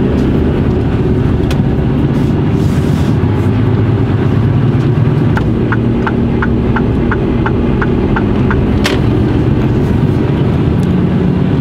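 Heavy truck's diesel engine running steadily under way, heard inside the cab. A run of quick, even ticks from the turn indicator comes about five seconds in, as the truck turns, with a single sharp click a little after.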